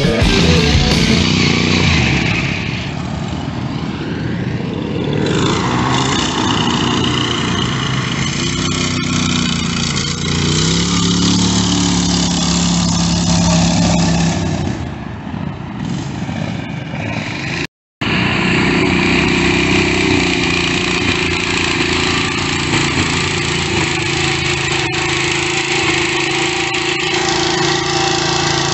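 Riding lawn mower engines running and revving as the mowers churn through mud, their pitch rising and falling. The sound drops out for an instant about two-thirds of the way through.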